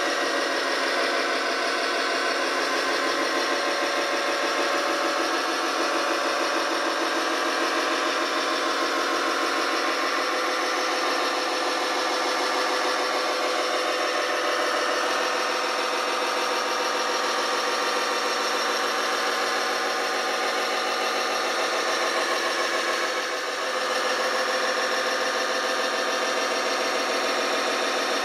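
Steady diesel-engine running sound from a radio-controlled Liebherr LTM 1055 model mobile crane as it drives slowly, with no deep bass; the level dips briefly near the end.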